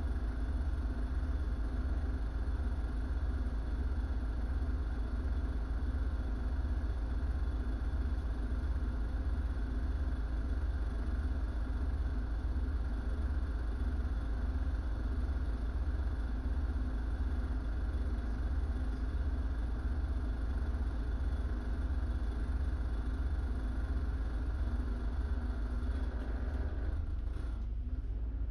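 Double-decker bus engine idling steadily, heard from the top deck while the bus waits at a red light, a deep rumble with a steady hum. Near the end the engine note changes as the bus gets ready to pull away.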